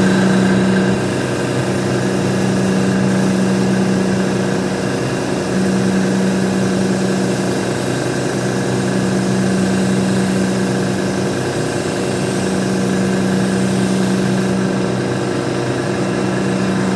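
Compressed-air paint spray gun hissing as paint goes onto a car's body panel, over a steady mechanical hum. The highest part of the hiss eases off near the end.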